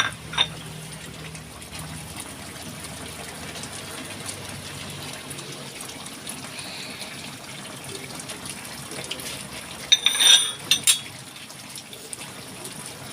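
Chicken curry simmering in a pot, a steady bubbling hiss, with a few sharp clinks about ten seconds in.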